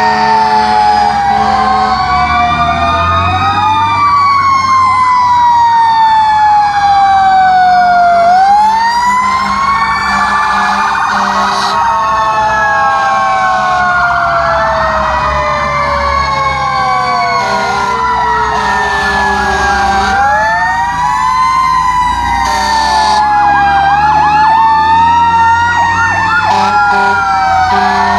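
Several fire truck sirens sounding loudly at once and overlapping. Long, slow falling wails mix with rising-and-falling ones, and a fast warbling yelp comes in near the end.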